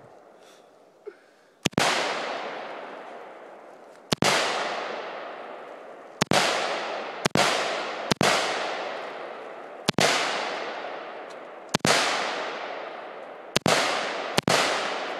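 AK-pattern rifle fired in slow single shots, about nine in all at uneven gaps of one to two seconds, each crack followed by a long echo rolling away through the trees.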